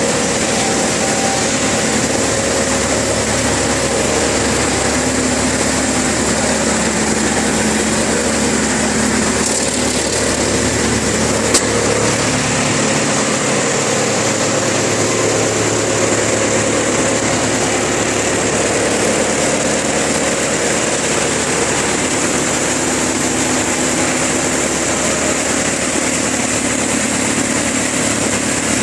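Wood chipper machine running steadily, with a constant mechanical hum and one sharp tick about twelve seconds in.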